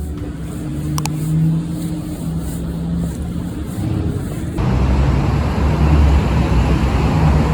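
Steady low rumble of a car running, turning abruptly louder and noisier about four and a half seconds in.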